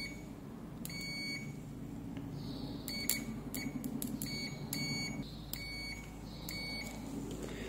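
Aneng SZ303 multimeter's continuity buzzer giving about eight short, high beeps at uneven intervals. Each beep signals continuity as the test probe tips touch.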